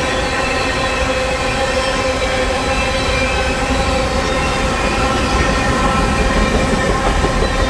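Canadian Pacific freight train's covered hopper and tank cars rolling past at steady speed: a constant low rumble with a continuous, many-pitched squeal from the wheels on the rails.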